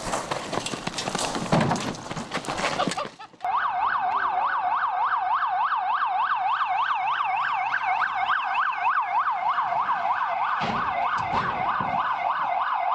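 About three seconds of rough, noisy commotion with knocks, then an electronic police car siren sounding a fast yelp, its pitch sweeping up and down about four times a second.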